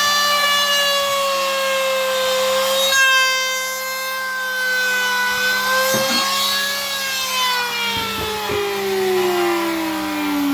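Electric power tool's motor whining as it cuts into a wooden door for a lock mortise, its pitch wavering under load and then sinking steadily over the last few seconds as the motor slows.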